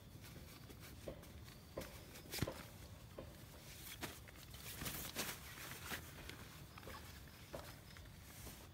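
Soft rustling of fabric and gear being handled on a tent groundsheet, with scattered light taps and clicks. The sharpest tap comes about two and a half seconds in, and a cluster of them comes around the middle.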